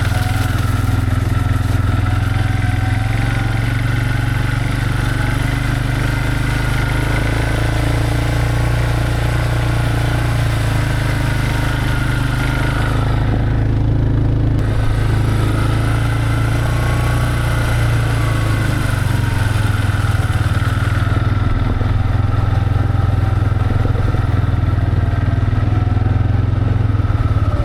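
A vehicle's engine running steadily as it is driven along, a constant low hum that does not let up.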